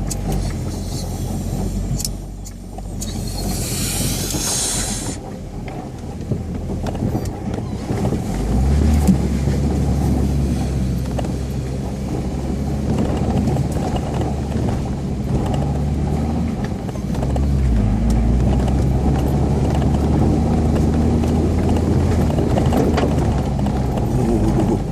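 UAZ Patriot's engine working hard off-road, its pitch shifting about a third of the way in and again past the middle. A loud rushing hiss, like a splash or brush against the body, lasts a couple of seconds near the start.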